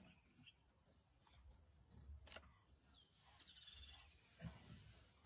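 Near silence: faint bush ambience with a short bird trill about three seconds in, a soft click about two seconds in and a low soft thump near the end.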